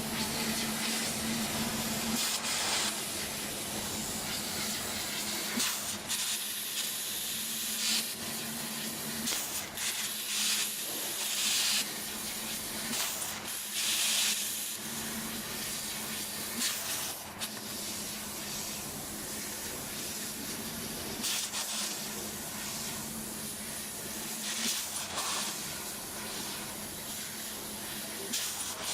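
CNC fibre laser cutting machine cutting sheet metal: a continuous hiss of assist gas through the cutting head, with repeated louder hissing stretches of about a second as cuts start and stop, over a steady hum that drops in and out.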